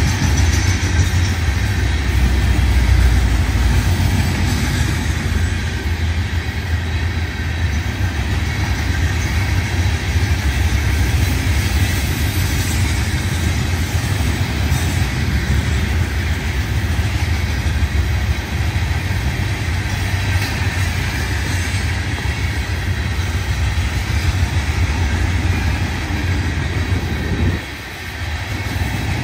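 Freight train cars rolling past on the rails: a steady low rumble with rail noise, dipping briefly near the end.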